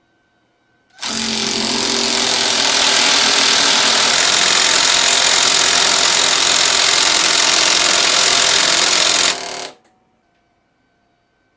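Battery impact tool hammering on a bolt together with a battery oil pulse wrench pulsing: a loud, rapid, continuous hammering that starts about a second in, runs steadily for about eight and a half seconds and cuts off sharply.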